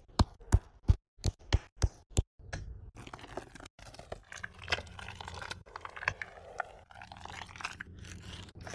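Wooden meat mallet pounding raw meat on a wooden cutting board: a quick run of about eight sharp knocks in the first two seconds. After that comes a steady wet crunching and scraping as the minced meat, onion and scallion filling is worked in a bowl.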